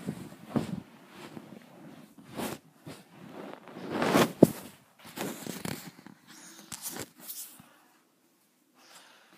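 Snorting, snuffling breaths mixed with rustling of a blanket, in irregular bursts; the loudest snort comes about four and a half seconds in, and it falls almost quiet after about eight seconds.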